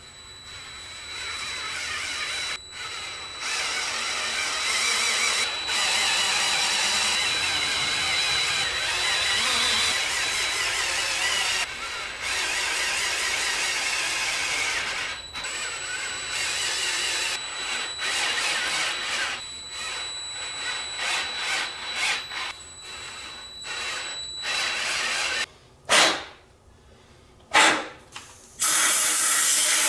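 Power drill running in repeated runs of several seconds with brief stops between, a steady high whine over a rough grinding hiss. Near the end it gives two short separate bursts.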